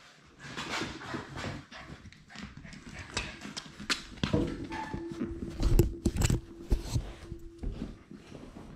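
Labrador Retriever puppy moving about right at the camera: a run of clicks, scrapes and rustles from its paws and body, with a few loud knocks about six seconds in.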